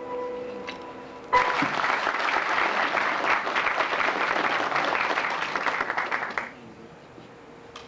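The last held note of a song with piano accompaniment fades out. The audience then breaks into applause about a second in, claps for about five seconds and stops fairly abruptly.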